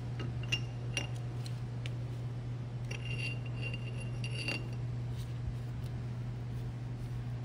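Steel parts of a boiler feed pump clinking as the bearing cap is slid by hand down the shaft into the seat ring holder: a few light metallic clicks, then a ringing clink for over a second about three seconds in, over a steady low hum.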